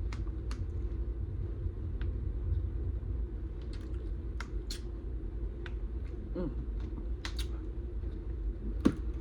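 A person chewing a mouthful of burrito close to the microphone, with irregular wet mouth clicks and smacks over a low steady hum.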